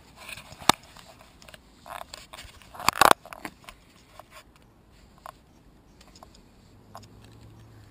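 Handling noise on an action camera: a sharp knock, then a louder cluster of knocks and scrapes about three seconds in, followed by scattered small clicks.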